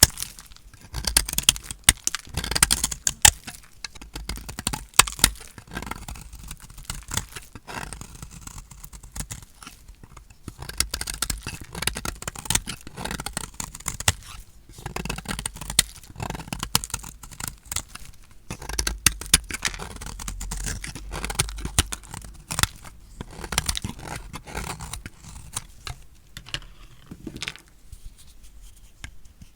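A knife cutting through dry, painted soap, giving a dense run of crisp crunches and crackles in uneven clusters, a little fainter near the end.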